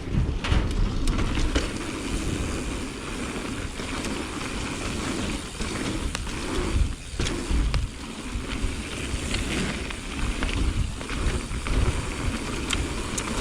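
Bicycles riding fast down a dirt jump trail: knobby tyres rolling on dirt with a steady heavy rumble, and scattered clicks and rattles from the bikes.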